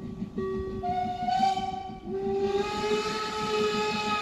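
Narrow-gauge steam locomotive's whistle blowing. A shorter blast comes first, then a long one starts about halfway in and rises slightly in pitch, with steam hissing behind it.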